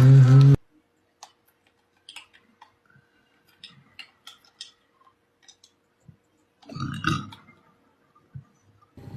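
A man's loud, low-pitched burp that cuts off sharply about half a second in, then scattered faint clicks and one short louder noise about seven seconds in.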